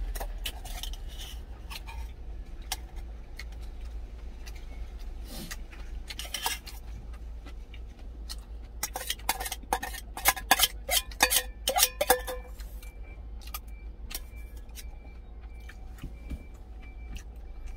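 Metal spoon and chopsticks clinking and scraping against a stainless steel food container, with scattered single clinks and a quick run of them about nine to twelve seconds in, over a steady low hum.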